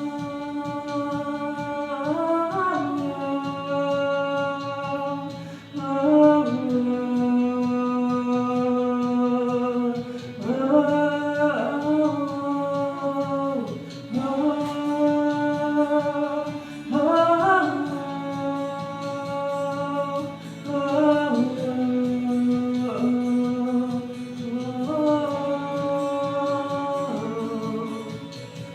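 A female voice sings long wordless notes over instrumental accompaniment, sliding up into each held note.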